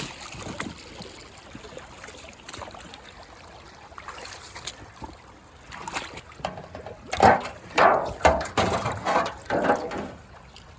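A creek trickles faintly. About seven seconds in come roughly six heavy footsteps on the creek bed, about two a second.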